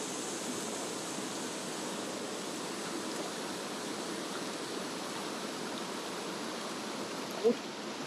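Mountain stream water rushing steadily over rocks. A short voice sound comes near the end.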